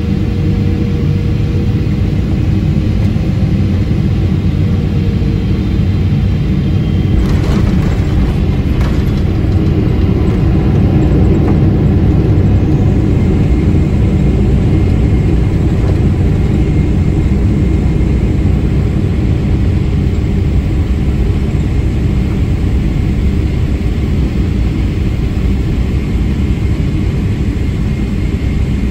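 Steady low rumble of a Boeing 777-300ER's GE90 jet engines and airflow heard inside the cabin, with a few short clicks or knocks about seven to nine seconds in.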